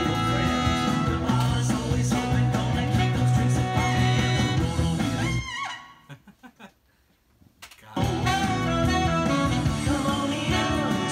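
A pop-country song with singing, guitar and a brass-and-saxophone horn section playing together. About five and a half seconds in, the whole band stops at once and leaves about two seconds of near silence, then comes back in full.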